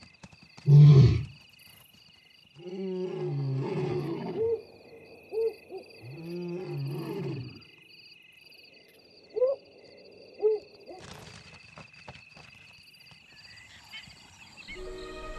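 Deep, drawn-out growling roars of large carnivores at a night kill. A short loud one comes about a second in, then two longer ones, then two short rising-and-falling yelps, all over a steady chirp of insects. Music comes in just at the end.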